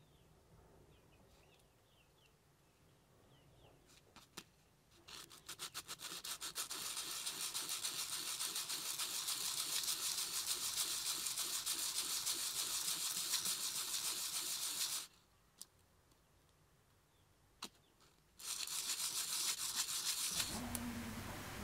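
A small metal lure piece rubbed by hand back and forth on a sanding disc in rapid strokes, a dry scratchy scraping. It starts about five seconds in, runs for about ten seconds, stops, and picks up again for a shorter spell near the end.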